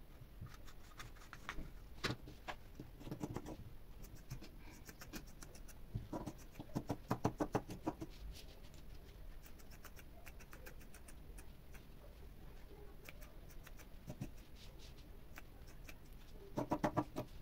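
Scissors cutting through knit fabric, a faint snipping in runs of quick clicks, with the longest and loudest runs about six to eight seconds in and near the end.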